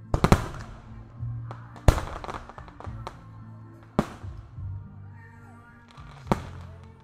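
Professional aerial firework shells bursting in the sky: a quick cluster of bangs at the very start, a loud bang just before two seconds followed by a run of small pops, then single bangs about two seconds apart. Music with a steady low line plays underneath.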